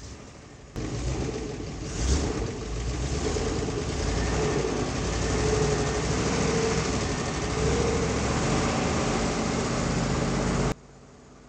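Old GAZ cargo truck's engine running steadily with a wavering drone, briefly louder about two seconds in. It starts abruptly about a second in and cuts off abruptly near the end.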